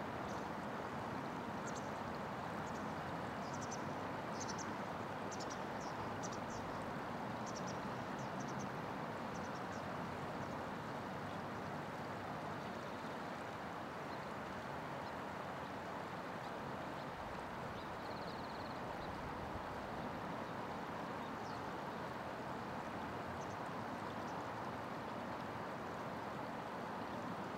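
Steady rush of flowing river water, with a scatter of faint high clicks in the first several seconds and a brief high chirp about two-thirds of the way through.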